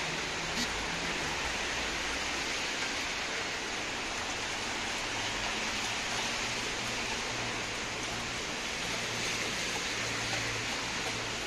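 Steady hiss of rain falling on a wet street and pavement.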